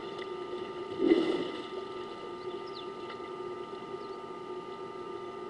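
An African elephant wallowing in a waterhole, with one loud splash of water about a second in, then quieter sloshing as it settles, over a steady background hum.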